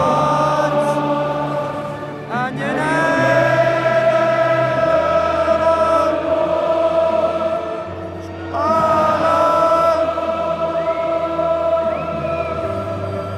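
A choral anthem over the stadium PA: a choir sings long held chords over an orchestra, with a low bass note that moves every couple of seconds and new chords swelling in twice.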